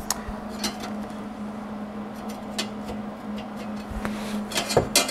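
Light clicks and taps of a MIG welding gun and its cable being positioned against the steel battery-tray frame, with a couple of sharper knocks near the end, over a steady low hum. No welding arc yet.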